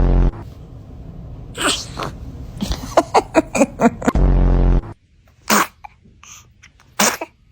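A baby sneezing several times in short sharp bursts, with a quick run of little breathy spikes in the middle. A loud, low buzzing tone sounds for about half a second at the start and again about four seconds in.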